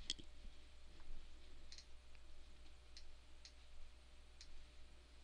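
Faint computer mouse clicks, about half a dozen spread irregularly over a few seconds, over a low steady hum.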